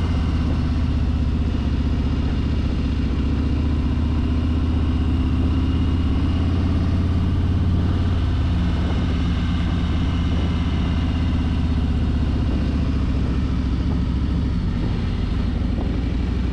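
A 2020 Harley-Davidson Street Glide's V-twin engine running steadily as the bike is ridden at an even pace, with wind and road noise over it.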